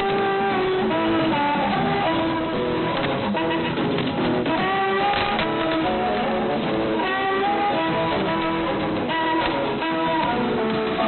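Music played by a shortwave pirate station, heard through an AM shortwave receiver.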